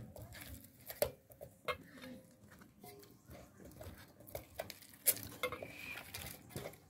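Hands working soft dough pieces in flour on a large metal tray: irregular scraping and patting, with scattered sharp taps against the metal, the sharpest about five seconds in.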